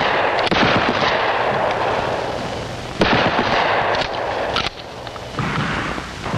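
Shotgun fired from the shoulder: a loud shot about three seconds in, its boom rolling on for more than a second, after the long tail of a shot fired just before. A short click follows, then a fainter bang near the end.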